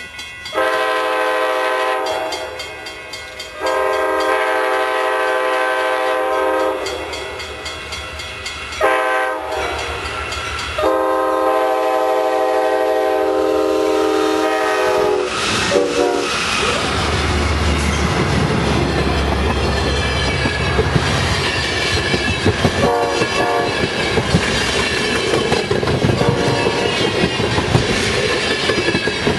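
Amtrak California Zephyr's diesel locomotive horn blowing a long, long, short, long sequence, the grade-crossing signal. Then the locomotives pass with a low engine rumble, and the bilevel Superliner passenger cars roll by with a steady clickety-clack of wheels over the rail joints.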